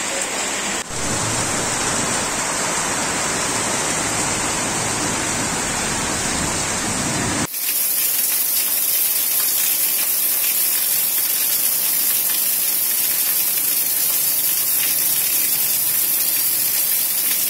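Heavy rain pouring down steadily, a dense, even hiss of a downpour. The sound changes suddenly about a second in and again about halfway through, turning higher and hissier after the second change.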